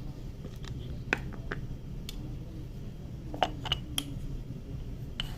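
A handful of light clicks and taps from spice containers and utensils being handled while adding salt to a seasoning mix, over a low steady background hum.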